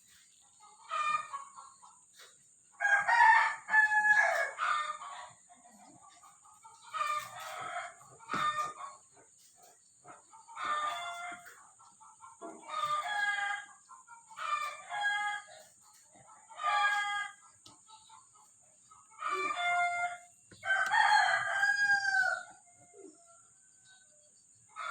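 Chicken calls: a series of about ten clucking and crowing calls, each about a second long, with short pauses between them.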